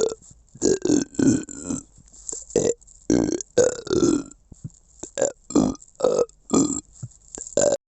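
A person belching in a rapid string of about a dozen short burps with brief pauses between them, stopping abruptly near the end.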